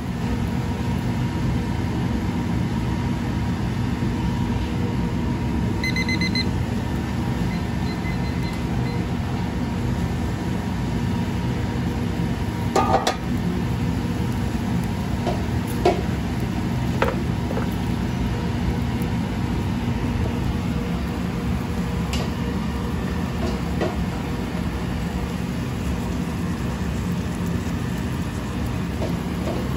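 Steady hum and roar of a restaurant kitchen's gas range and ventilation, under hamburg steaks simmering in sauce in a steel pan. A short electronic beep comes about six seconds in, and a few sharp metal clinks come around the middle.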